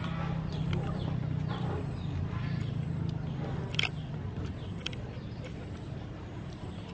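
Outdoor ambience: a steady low hum with chickens clucking now and then. About four seconds in, a metal spoon clinks sharply against a plate as fish is scooped.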